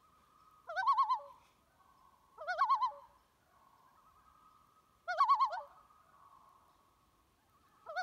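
Common loon tremolo calls: four short, rapidly wavering calls a couple of seconds apart, the last near the end, over a faint steady background tone.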